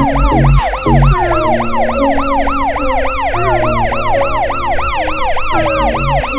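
Electronic police siren in rapid yelp mode, its pitch sweeping up and down about four times a second, over background music with steady held notes and a low bass.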